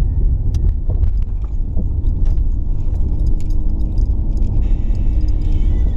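Car driving, heard from inside the cabin: a steady low rumble of engine and road noise, with scattered small rattles and clicks.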